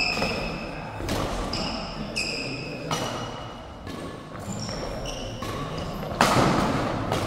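Badminton rally: sharp racket strikes on the shuttlecock every second or two, the loudest about six seconds in. Between the strikes, short high squeaks of players' shoes on the court mat.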